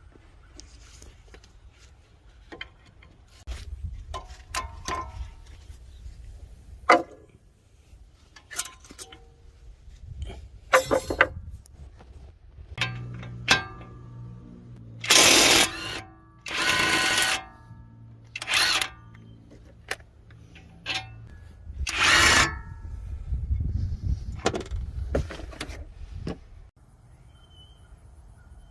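Work on a car's wheel bearing: clinks and knocks of tools and parts, with a power tool run in four short bursts of up to about a second each in the middle stretch, over a low steady hum.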